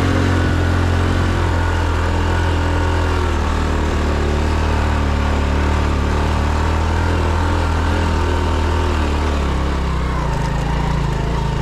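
Small motorcycle engine running steadily under way, with wind and road noise over it. The engine note changes about ten seconds in.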